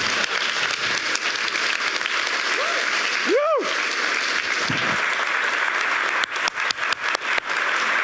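Large audience applauding steadily, with one short whoop that rises and falls in pitch about three and a half seconds in.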